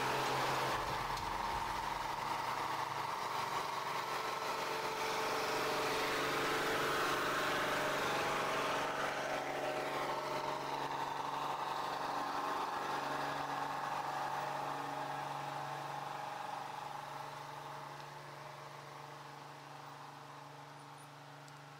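Heavy logging truck's diesel engine running as the loaded truck passes close by, then fading steadily as it pulls away over the last few seconds.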